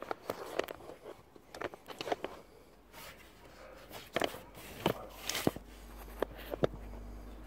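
Scattered light clicks and knocks of hands handling parts and equipment, with a low rumble building near the end.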